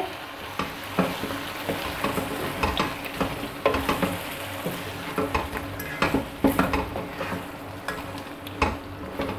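Wooden spatula stirring chicken and cream in a nonstick frying pan over a sizzling gravy, with irregular scrapes and taps against the pan.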